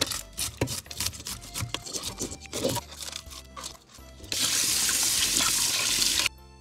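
Metal fish scaler scraping scales off a largemouth bass in a stainless steel sink, in quick repeated strokes. About four seconds in a faucet runs onto the fish for about two seconds, then stops suddenly.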